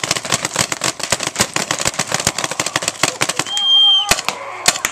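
Several paintball markers firing together in a rapid, overlapping volley of sharp pops. About three and a half seconds in, a loud whistle blast sounds the cease fire, and a few last shots follow.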